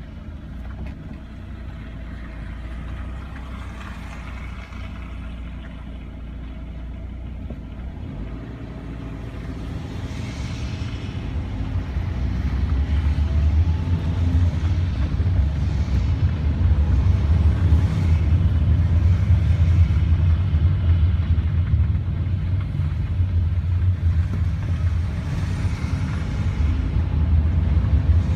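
Car driving in city traffic, a steady low rumble of engine and tyres. It is quieter while the car is held in traffic, then grows louder about twelve seconds in as the car gets moving and drives on.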